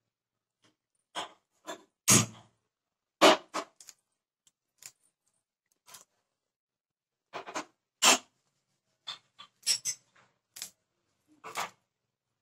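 Small fish being cut and cleaned on a boti, the upright curved blade of a floor-mounted Bengali cutter: a dozen or so short, sharp scrapes and taps at irregular intervals as the fish are drawn and pressed against the blade.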